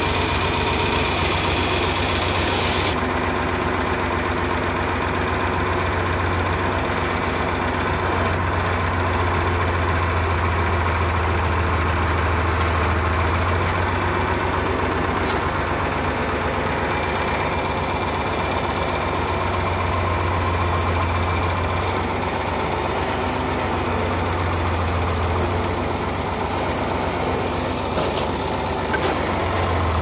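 Farm tractor engine running steadily with a low drone, heard from the driver's seat.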